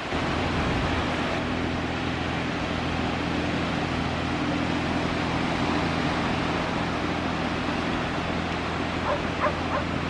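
Strong wind on the microphone over a steady low droning hum. About nine seconds in, a dog whimpers and yips a few times.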